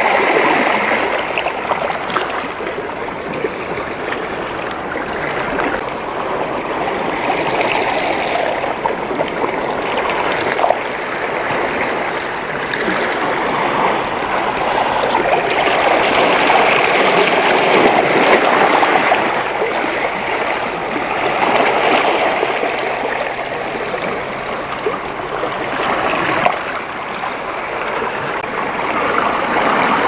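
Sea waves washing and splashing over shoreline rocks, a steady rush of water that swells and fades every few seconds.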